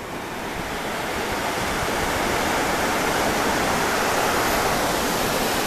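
Wave swash rushing over wet sand at the water's edge: a steady hiss that builds over the first couple of seconds and then holds.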